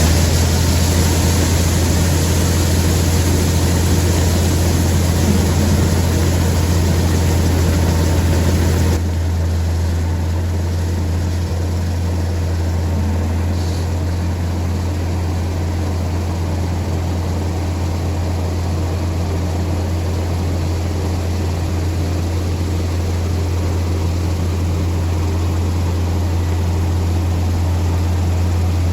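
Gleaner combine harvester running steadily while harvesting corn, a constant low engine hum under the noise of the threshing machinery. About nine seconds in the sound changes abruptly, losing much of its high hiss, then continues steady.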